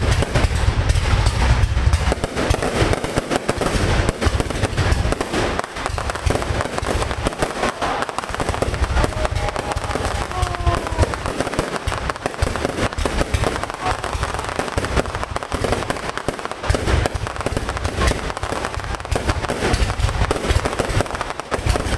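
Aerial fireworks display going off without a break: dense crackling and popping over deep booming bursts, heaviest in the first couple of seconds and again near the end.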